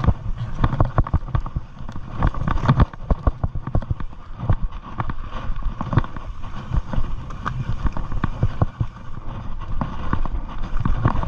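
Mountain bike rolling fast down a dirt and rock trail: tyres crunching over dirt and stones, with frequent knocks and rattles from the bike over bumps.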